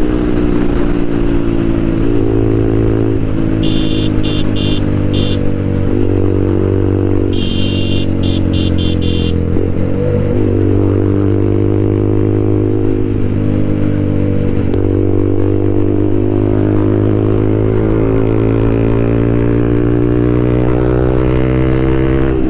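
TVS Apache RTR 200 4V's single-cylinder engine running through a full-system aftermarket exhaust while riding, its note rising and falling slowly with the throttle. Short high beeps repeat in two runs, about four seconds in and again about eight seconds in.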